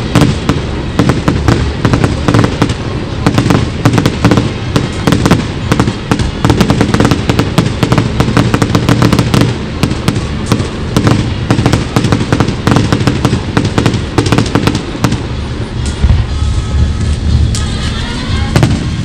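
Fireworks display in a dense barrage: rapid crackling and popping over deep booms, many reports a second, thinning slightly near the end.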